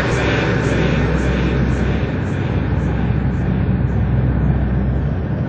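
Steady, loud jet-aircraft engine roar, a sound effect played over a club sound system.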